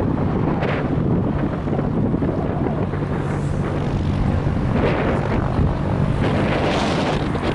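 Airbus A320's jet engines giving a steady low rumble as the airliner descends, with wind buffeting the microphone in gusts.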